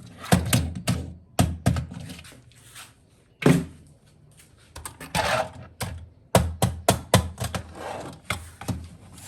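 Hard plastic toy parts being handled, with a series of sharp clicks and knocks. There are two short scraping swishes, about three and a half and five seconds in.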